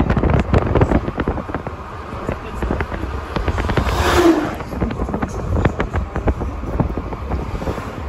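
Wind buffeting and crackling on the microphone in a moving car, over low road rumble. About four seconds in, a passing semi truck swells loud with a steady low tone and fades.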